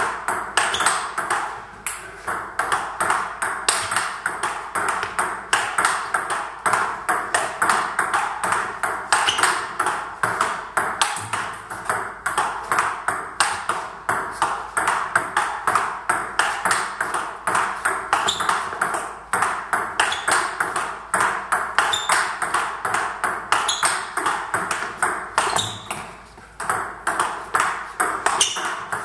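Table tennis ball in a fast practice rally: quick clicks of the ball off the rubber paddles alternating with its bounces on the Butterfly table, several a second. There is a short break about two seconds in and another about three seconds before the end.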